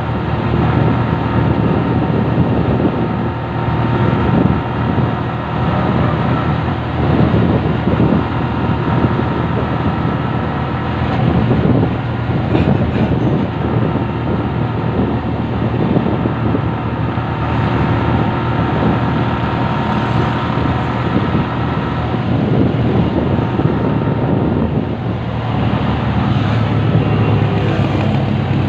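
Steady engine and road noise of a vehicle travelling along a road, with wind rushing over the microphone.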